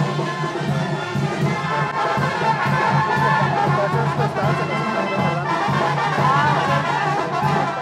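Loud music led by brass instruments over a steady pulsing bass.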